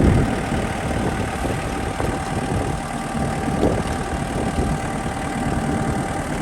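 Kubota tractor's diesel engine running steadily at a low, even speed.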